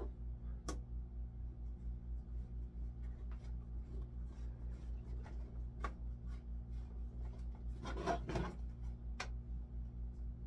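Small clicks and rubbing of metal screws being fitted through a wooden handsaw handle, with a louder scrape about eight seconds in. Under it, a steady low hum pulses about four times a second.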